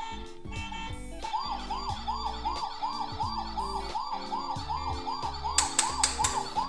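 Cartoon emergency-vehicle siren in a fast yelp, rising and falling about three times a second, starting just over a second in, over background music. A few sharp hits near the end.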